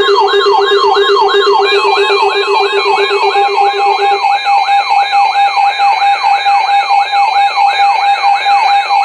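Electronic weather-alert receiver alarms sounding together to signal an incoming warning: a fast falling whoop repeating about three times a second over steady electronic tones. A low steady tone stops about four seconds in, and a higher one carries on.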